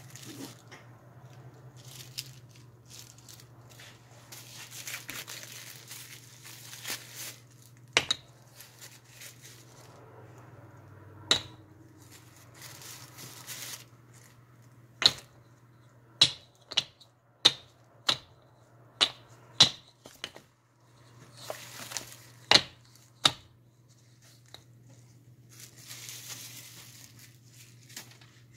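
Plastic bags crinkling and rustling as they are handled, with about a dozen sharp clicks of hard Ayilo clay discs knocking together as they are set down in a stack. The clicks come in a quick run, roughly two a second, in the middle.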